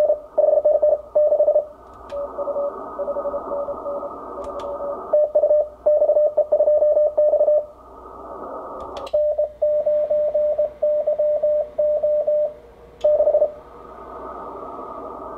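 Morse code (CW) keyed tones from an Icom IC-7300 transceiver's speaker: fast code at one steady pitch over receiver band hiss, in several runs with short gaps. A few sharp clicks come in between.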